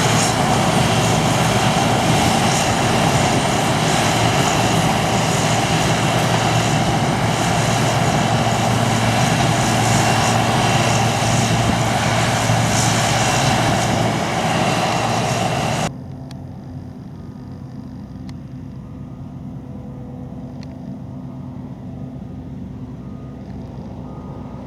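Harvest machinery running steadily and loudly at close range, then an abrupt cut about two-thirds through to a quieter, steady diesel engine hum. Faint short beeps repeat about once a second near the end.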